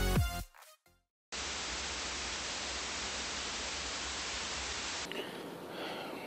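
Electronic background music ends, and after a moment of silence a steady hiss of TV static plays for about four seconds, an edited-in effect. Near the end it gives way to wind on the microphone.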